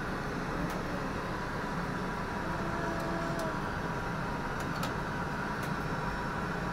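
Steady cockpit noise from an Airbus A300-600 full-flight simulator's sound system: an even engine and airflow rush with a faint steady hum, broken by a few faint clicks.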